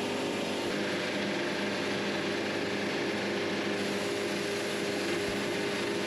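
Wood-Mizer LT70 bandsaw mill's diesel engine running steadily as the band blade is fed slowly through a half log.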